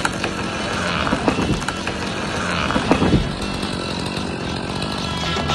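Chainsaw running steadily while a felled standing-dead ash tree comes down, with cracks and a crash as it hits the ground, loudest about three seconds in.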